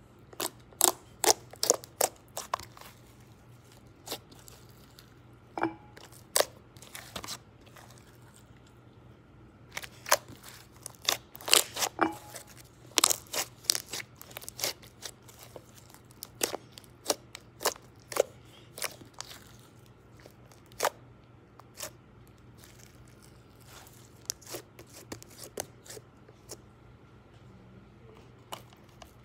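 Pink slime being squeezed and kneaded by hand, making irregular sharp wet clicks and pops in bursts with short pauses between.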